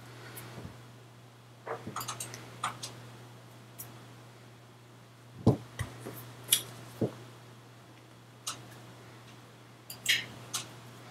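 Scattered soft clicks, taps and slaps of hands striking each other and the body as they move, with one heavier thump about five and a half seconds in. A steady low hum runs underneath.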